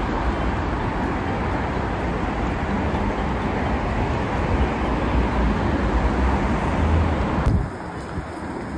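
Steady, loud rumbling noise of a moving vehicle. It cuts off abruptly about three-quarters of the way through, giving way to a quieter rumbling background.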